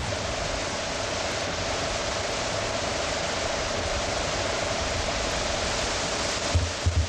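Steady rushing of Toccoa Falls, a tall waterfall pouring down a rock face, under a faint steady hum. A few low thumps come near the end.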